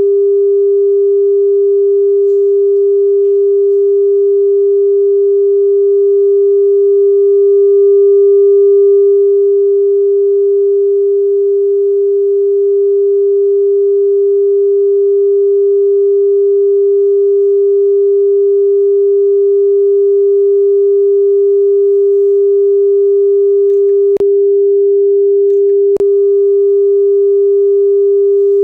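A steady pure test tone played back from tape by a Pioneer CT-939 cassette deck for wow-and-flutter and speed measurement, swelling slightly in level about a third of the way in, with two sharp clicks about two seconds apart near the end.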